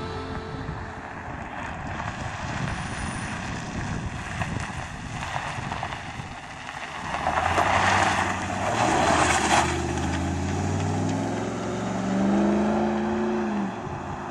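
A pickup truck drives up and passes close by, its tyre and engine noise loudest about eight seconds in. Near the end its engine climbs in pitch as it accelerates away.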